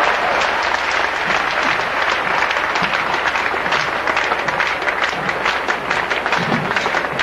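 Applause: many hands clapping together in a dense, steady patter.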